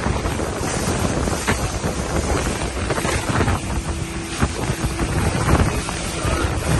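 Speedboat under way at speed: engine running under rushing water, with heavy wind buffeting the microphone and a few sharp knocks.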